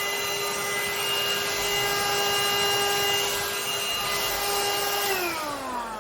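Parkside PHSSA 20-Li cordless hand-held vacuum cleaner running with a steady high whine over a rush of air. About five seconds in, it is switched off and the motor winds down, its pitch falling away.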